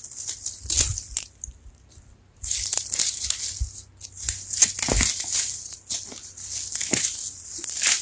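Food being handled during cooking: irregular bursts of crunching and rustling with light clicks and a few soft knocks.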